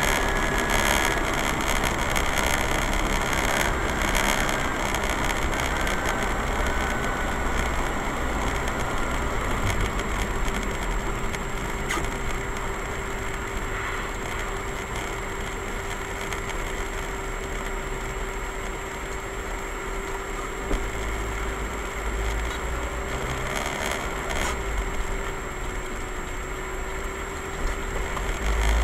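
Steady drone of a car driving, heard from inside the cabin through a dash camera's microphone: engine and road noise with a constant mid-pitched hum and a faint high whine, broken by a couple of soft clicks.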